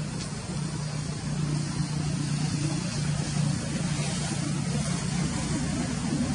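A steady engine-like hum that holds one low pitch under a noisy rush.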